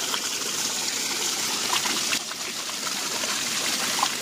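Water gushing steadily from the end of a plastic pipe and splashing onto wooden boards and into the pooled water below.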